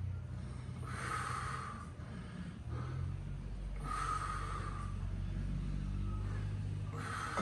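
A person breathing out forcefully three times, about once every three seconds, in time with reps on a pec-deck chest machine, over a steady low hum.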